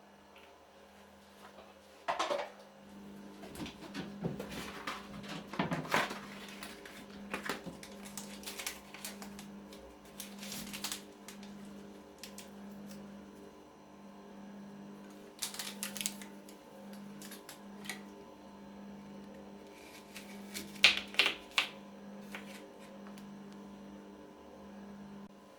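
Household handling noises: scattered clicks, knocks and clatter over a steady low hum that pulses about once a second and stops suddenly at the end.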